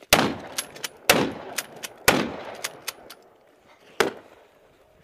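Gunfire in a firefight: four loud single shots, the first three about a second apart and the last a couple of seconds later, each followed by a rolling echo, with fainter, sharper cracks of other shots between them.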